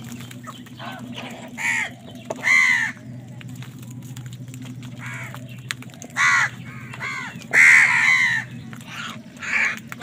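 House crows cawing, about six calls from different birds, the loudest and longest about eight seconds in, over a steady low hum.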